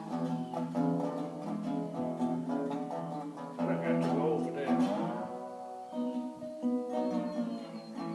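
Tricone resonator guitar playing a tune, plucked notes ringing one after another, some of them sliding in pitch.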